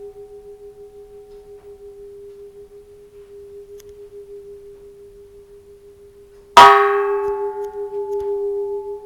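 Antique bronze Japanese Buddhist temple bell still humming from an earlier strike, then struck once about six and a half seconds in. It rings out bright and settles into a long, slightly wavering hum. The bell is cracked, which the owner says has barely affected its reverberation.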